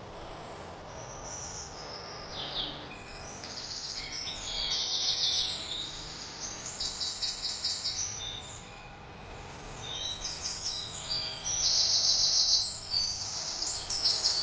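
Wild birds singing and chirping: repeated high, rapid trills that come in bursts of about a second, with a short gliding call early on, over a faint steady background.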